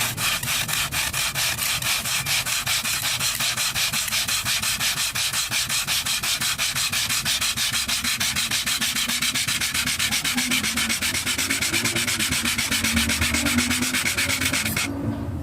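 Rapid, even back-and-forth rubbing strokes on wood, about five a second, as in hand sanding; they stop shortly before the end.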